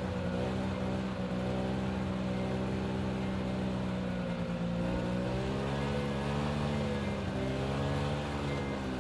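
1984 Yamaha Bravo snowmobile's single-cylinder two-stroke engine running under way, heard close up. Its pitch sags about halfway through, then climbs and wavers before settling.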